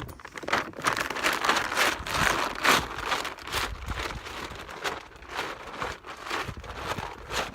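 Feed sack crinkling and rustling as it is swung and shaken, an uneven run of crackles.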